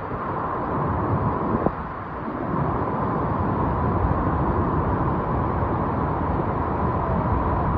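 Steady rushing noise of a muddy flash flood torrent pouring down a rocky wadi, with wind buffeting the microphone.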